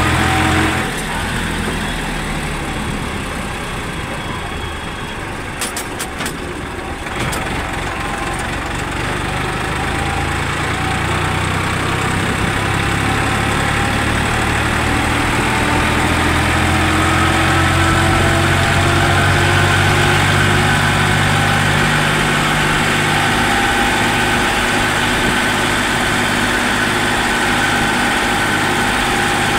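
Farmtrac 60 tractor's diesel engine running as the tractor drives along the road, heard from the driver's seat. The engine note eases off about a second in, then climbs steadily as the tractor picks up speed.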